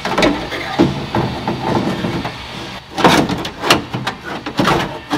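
Metal window-mechanism parts knocking and clanking against the inside of a 1950 Chevy pickup's steel door as they are worked into place, a string of sharp knocks that are loudest and closest together about three seconds in.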